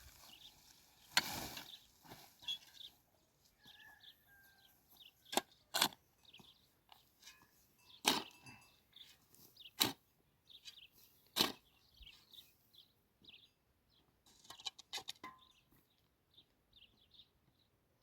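Irregular sharp knocks, about six of them a second or more apart, with faint bird chirps between.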